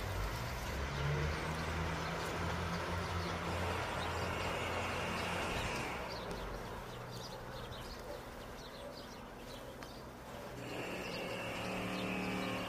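Irish Rail 22000 Class diesel multiple unit approaching slowly, its underfloor diesel engines running with a steady low hum. The hum quietens for a few seconds, then a higher steady note comes in near the end.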